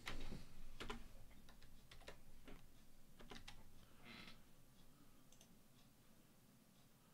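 Computer keyboard keys being typed: a run of sharp keystrokes over the first four seconds or so, then a few fainter clicks.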